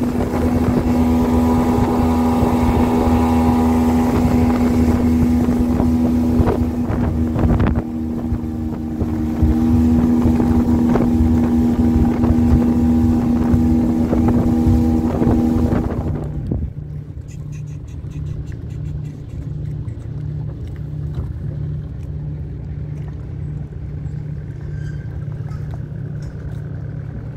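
Outboard motor of a small fishing boat running at speed, with wind and water rushing past the hull. About two thirds of the way in, the engine drops to a lower pitch and goes quieter.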